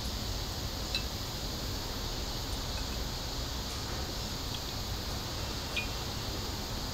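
Steady background hiss with a few faint, light clinks of kitchenware at a nonstick wok, one about a second in and one near the end as ingredients go in.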